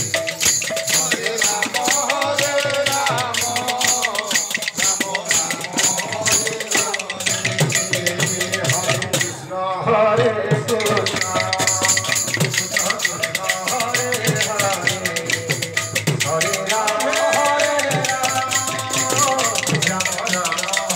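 Sankirtan devotional music: group singing over a fast, steady beat of jingling percussion with drum strokes underneath. The jingling percussion stops for about a second near the middle, then resumes.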